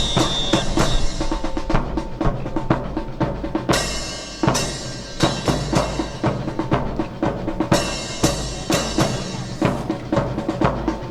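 Drum-led music: a fast, steady beat on snare and bass drum, with a cymbal crash at the start and again about every four seconds.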